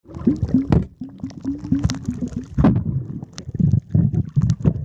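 Muffled underwater gurgling and knocking picked up by a submerged camera, with runs of short low gurgling pops in the first half.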